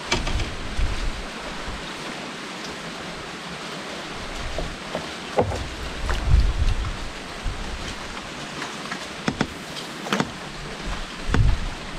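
Steady rush of river water and wind with gusty low rumbles, broken by a few short clicks and knocks in the wooden boat.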